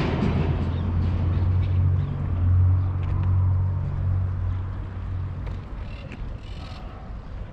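A motor vehicle's engine running with a steady low rumble that fades away about two-thirds of the way through.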